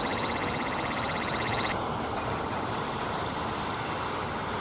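Boeing 737-800's CFM56-7B jet engines running at taxi power, a steady rushing noise as the airliner rolls past. A high, pulsing buzz sounds over it for the first couple of seconds and cuts off abruptly.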